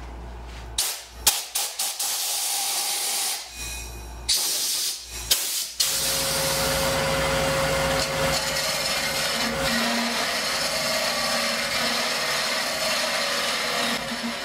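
Several short blasts of compressed air from a blow gun clearing shavings out of a hollowed oak barrel blank. About six seconds in, a wood lathe runs steadily, spinning the barrel while a hollowing tool cuts its inside walls.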